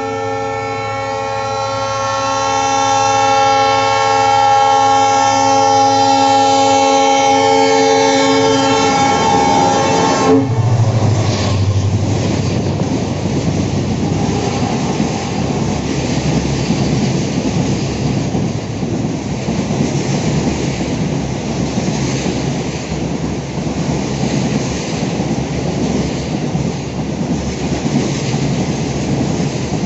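A locomotive horn sounds one long, unbroken blast for about ten seconds and cuts off suddenly, as a container freight train runs through the station at speed. After that, the wagons loaded with shipping containers roll past with a steady clatter of wheels on rail.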